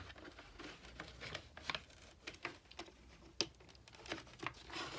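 Irregular faint clicks, taps and scrapes of hard plastic parts being handled and pried at while a discarded device is forced open, with one sharper click about three and a half seconds in.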